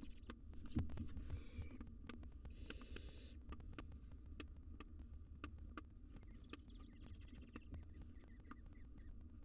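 Barn owls in a nest box giving three short raspy hisses, about a second in, near three seconds and near seven seconds, among scattered sharp clicks and taps, over a faint low hum.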